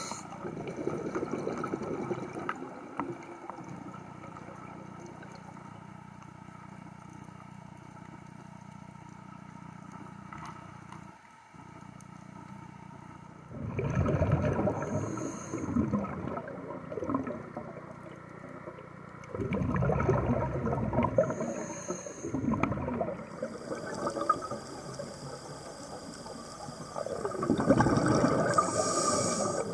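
A scuba diver breathing through a regulator, heard underwater. Exhaled bubbles rumble and gurgle in three surges a few seconds long, about six or seven seconds apart in the second half, each with a short high hiss, over a steady low hum.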